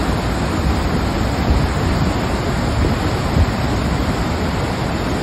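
Large waterfall's steady, loud rushing of falling water, with a couple of brief gusts of wind on the microphone.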